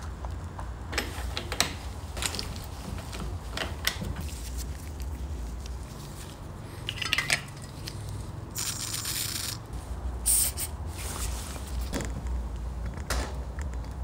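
Light clinks and scrapes of small hard objects being handled, with a hiss of about a second a little past the middle and a shorter one just after, over a steady low hum.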